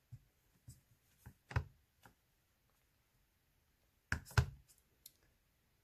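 Clear acrylic stamp block knocking against a Memento ink pad and the craft mat as a stamp is inked and pressed: a few soft taps in the first two seconds, then two louder knocks close together a little after four seconds, followed by a couple of small clicks.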